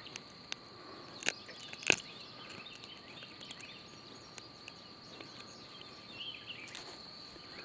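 Quiet outdoor ambience with a steady, high-pitched insect drone and two sharp clicks about a second and two seconds in.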